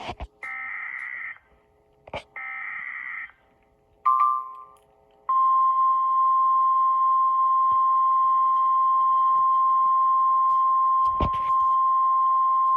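Emergency Alert System SAME header: two roughly one-second bursts of warbling data tones, about a second apart. A short beep follows, then from about five seconds in the steady single 1050 Hz NOAA Weather Radio warning alarm tone, which signals that a warning is about to be broadcast. A sharp click is heard twice.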